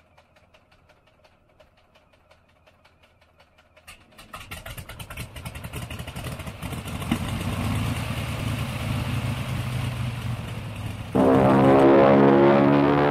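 An engine-like revving rattle of fast clicks, faint at first, then swelling from about four seconds in. Near the end a much louder droning tone with overtones cuts in suddenly.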